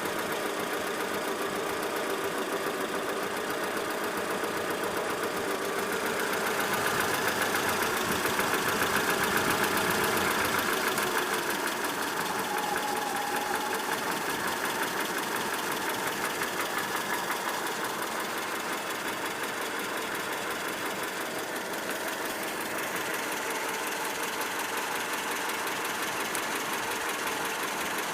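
ZMZ-402 inline-four petrol engine running with a fast, even knock, getting louder for a few seconds about six seconds in. The owner traced the knock to play between the piston pins and the connecting rods in all four cylinders.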